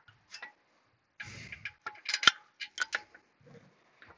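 A quick series of sharp metallic clicks and clinks, as metal parts or tools are handled. The loudest clink comes a little over two seconds in and carries a short ringing note.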